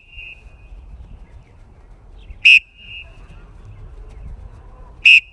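Sports whistle blown in short, sharp blasts, two of them about two and a half seconds apart, each trailing off in a brief fainter tone: the coach's whistle cueing the quarterbacks' drill reps.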